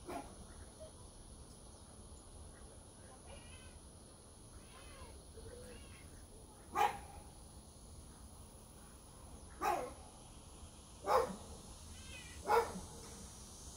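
A cat meowing in short calls: one at the start, then after a pause four more, each a second and a half to three seconds apart.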